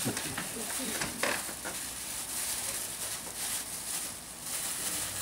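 Faint crinkling of thin plastic food-handling gloves as hands crumble gingerbread cake over a glass trifle bowl, with a slightly louder crackle about a second in.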